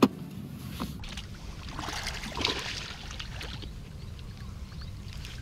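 Water splashing and sloshing in the shallows at the lake's edge, strongest about two to three seconds in: herabuna (Japanese crucian carp) spawning close to the bank.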